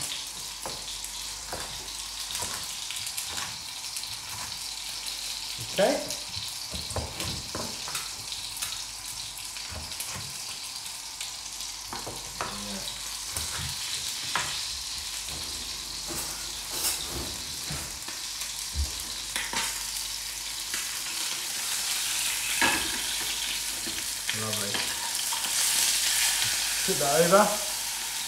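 Sea bream fillets frying skin side down in a pan, giving a steady sizzle that grows louder near the end. Knife chops land irregularly on a wooden chopping board.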